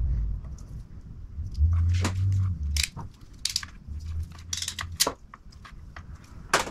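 Klein Tools wire crimper-stripper working a red wire: irregular sharp clicks and snaps from the tool's jaws and handles, with a few low handling thuds.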